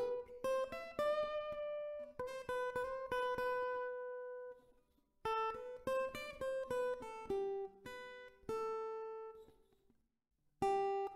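Solo acoustic guitar played fingerstyle: a plucked melody of single notes, each left to ring. It fades out twice, briefly about halfway through and for about a second near the end, before the next phrase comes in.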